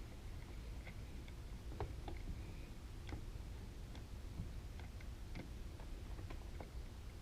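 Faint, irregular clicks and light taps of hands working at a motorcycle battery's positive terminal, fitting a ring-terminal lead, over a low steady hum.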